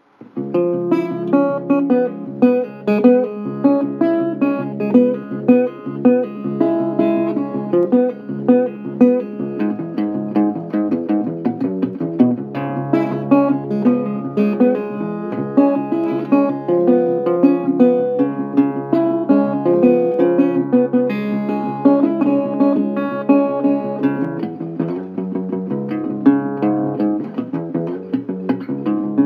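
Instrumental music on a plucked guitar: a steady run of picked notes and chords.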